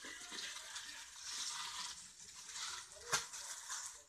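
Small plastic jewelry bags rustling and crinkling as they are handled, in uneven swells, with one sharp click about three seconds in.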